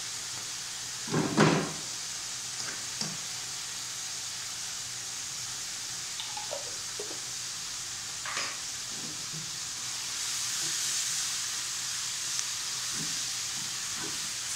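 Pickled mustard greens and a spoonful of hotpot base frying in oil in a wok: a steady sizzle that grows a little louder about ten seconds in. A loud knock about a second in and a weaker one near the middle, with a few light clicks of a spoon and spatula against the jar and pan.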